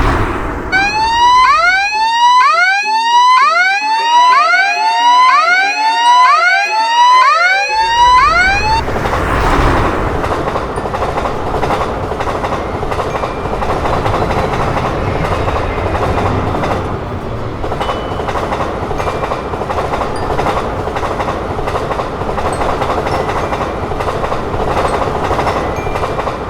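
Railway level-crossing warning signal sounding as a repeated rising electronic whoop, a little more than one a second, for about the first eight seconds, with a lower held tone in the middle. Then a train runs through the crossing with a steady rumble and rail noise.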